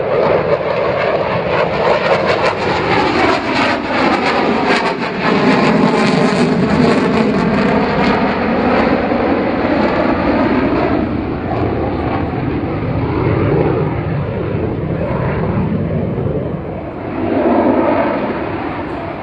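A military display jet flying past at an airshow: loud engine noise whose pitch sweeps and shifts as the aircraft passes, easing around two-thirds of the way through and swelling again near the end.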